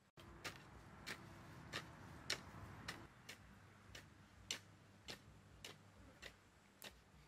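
Hand hoe chopping into a mound of soil, a sharp tick at each stroke in an even rhythm of a little under two strokes a second.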